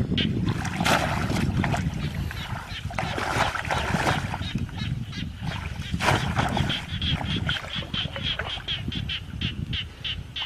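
Muddy paddy water splashing and sloshing as a conical bamboo plunge basket is pushed down into it, in several surges. Behind it, a rapid run of short, high chirps about four a second, clearest in the second half.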